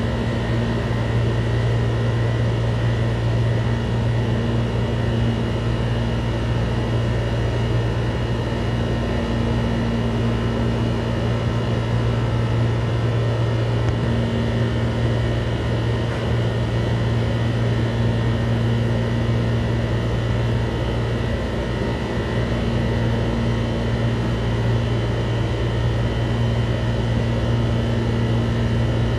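Steady mechanical hum: a strong low drone with fainter, steady high-pitched tones above it, not changing in pitch or level.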